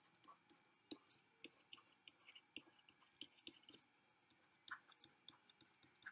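Faint, irregular clicks of a stylus tip tapping and moving on a tablet's glass screen during handwriting, a few a second, over a faint steady high tone.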